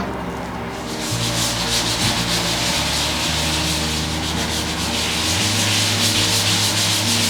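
Scrubbing during cleaning: a rapid back-and-forth rubbing on a surface that starts about a second in and keeps on steadily.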